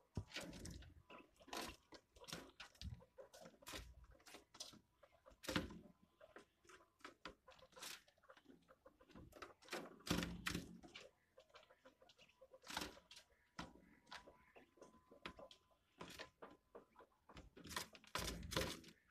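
Quail pecking and tearing at a locust on a dusty wooden cage floor: irregular sharp taps and crunches, some much louder than others.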